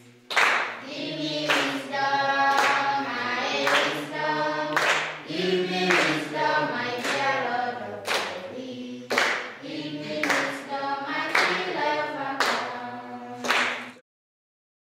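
A group singing together in chorus with hand claps on the beat, about one clap a second. The song stops abruptly near the end.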